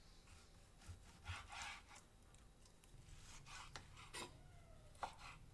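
Faint strokes of a knife cutting raw chicken into cubes on a cutting board, with a few light taps.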